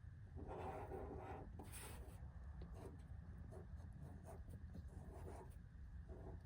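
Faint scratching of a marker pen writing on a plastic cattle ear tag, with a few light clicks of handling.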